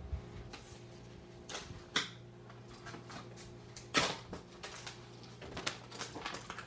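Packaging being handled: yellow tape peeled off a cardboard-wrapped stack of bagged comic books, with plastic comic bags and cardboard rustling and crinkling, and two sharper clacks about two and four seconds in. A faint steady hum lies underneath.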